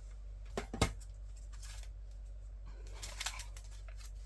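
A few light clicks and taps of packaged merchandise being handled, the sharpest click just under a second in.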